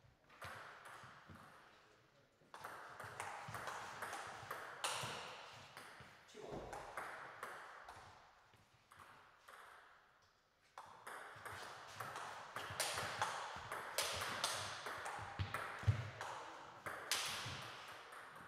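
Table tennis ball clicking back and forth off the bats and the table in two rallies: a short one a few seconds in and a longer one starting with a serve at about eleven seconds.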